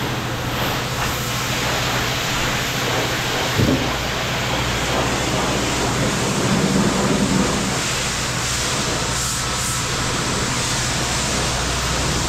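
Self-serve car wash high-pressure wand spraying water onto a car, a steady hiss with a low hum underneath. A brief thump about three and a half seconds in.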